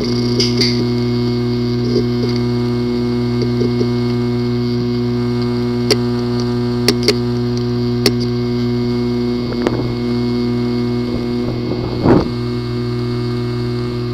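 Hard drive with a physically damaged disk assembly, running with a steady hum and giving sharp clicks at irregular intervals, with a louder brief burst near the end. This clicking is the symptom of a damaged disk assembly that needs clean-room repair.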